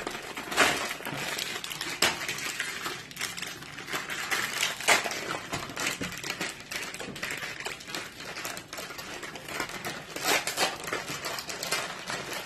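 Irregular clicks and taps from hands working slime and handling its containers, with an ingredient being scooped out to mix in.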